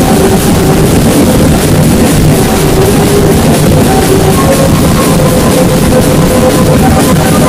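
Marching drum band playing: snare-type drums and bass drums beat a dense, steady rhythm, loud throughout, with a melody of held notes over the drumming.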